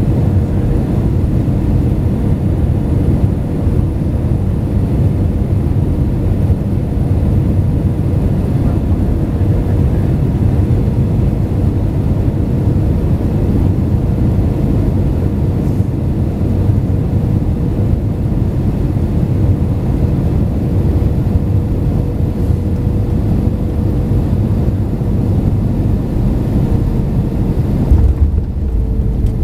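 Airliner cabin noise, most likely a Jetstar Japan Airbus A320: a steady low rumble with a thin, constant hum running through it. Near the end the hiss drops away and the hum slides slightly lower.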